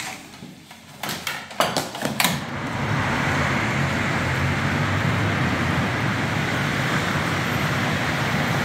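A few sharp clicks and knocks as a plastic pet carrier with a wire door is handled and shut, then from about three seconds in a steady, even rush of road traffic noise.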